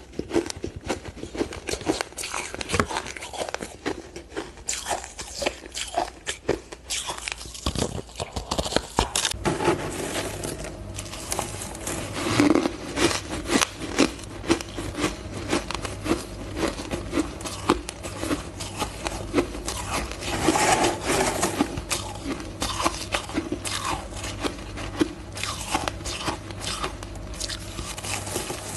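Close-miked crunching of ice being bitten and chewed, many irregular crisp crackles. The first stretch is bites from a yellow frozen ice block. After a change about nine seconds in, it becomes mouthfuls of soft crushed ice eaten by the spoonful.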